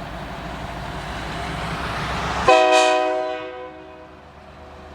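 Union Pacific diesel locomotive's rumble growing louder, then about halfway through a short salute blast on its air horn, several notes sounding together, which starts suddenly and fades out within about a second.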